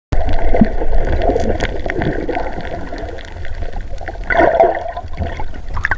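Muffled gurgling and sloshing of water heard through a submerged camera, with scattered small clicks and knocks.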